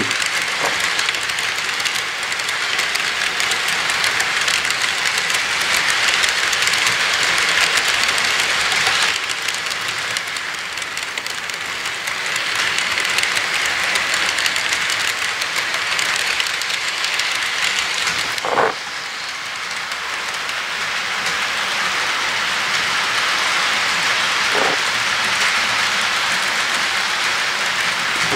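HO scale model freight cars rolling past on the track, their wheels giving a steady rolling rattle that swells and fades as the cars go by, with a couple of brief sharp squeaks.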